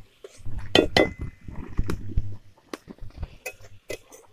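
Metal spatula scraping and knocking against a steel kadai while a masala is stirred and fried, in irregular clinks. The loudest strike comes about a second in and leaves a short metallic ring.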